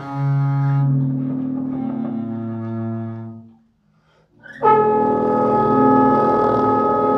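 Free improvisation on two trombones and a bowed double bass, in long held low notes. The first note fades out about three and a half seconds in. After a second's silence a new, brighter sustained note comes in.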